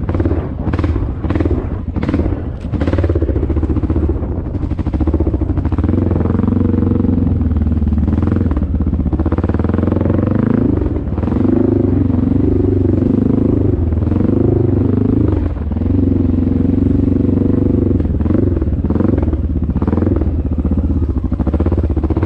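Dirt bike engine running and revving up and down again and again as it rides, with several knocks and rattles in the first few seconds.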